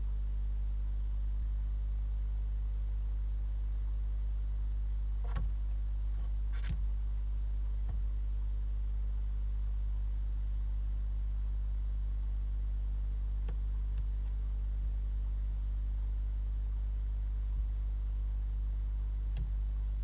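Steady low electrical hum picked up by a nest-box camera's microphone, with a few faint brief knocks or scrapes scattered through it.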